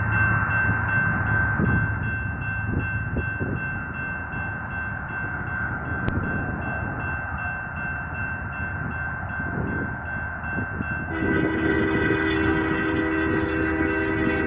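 Low rumble and wind-like noise from an approaching BNSF freight train, with a steady high tone throughout. About 11 seconds in, the locomotive's air horn sounds one long chord that holds for about three seconds.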